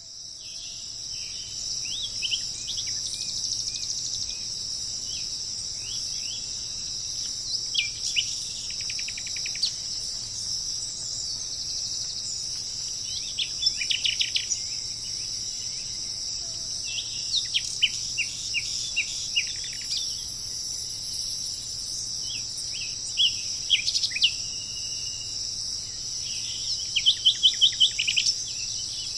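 A steady, high-pitched chorus of insects, with wild birds calling over it. The birds give short downward-sliding notes and quick runs of repeated notes in bouts every few seconds, the loudest run coming near the end.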